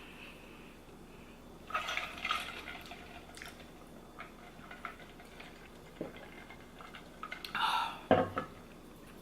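Cutlery scraping and clinking against a plate during a meal, in scattered clicks about two seconds in and again near the end, with a louder knock about eight seconds in.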